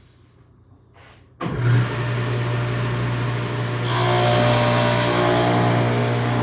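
Table saw with a dado blade stack switched on about a second and a half in, coming up to speed with a steady hum; from about four seconds in the sound fills out and gets louder as the dado stack cuts a T-track groove in plywood.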